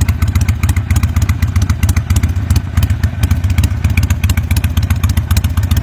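Harley-Davidson V-twin engine running steadily at a low, even speed, a rapid pulsing exhaust beat with a deep low end.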